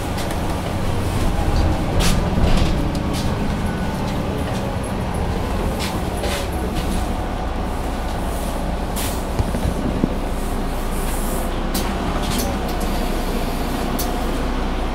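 Solaris Urbino III 12 city bus under way: its engine and Voith automatic gearbox run with a steady low drone, swelling slightly about two seconds in. Sharp clicks and rattles are scattered throughout.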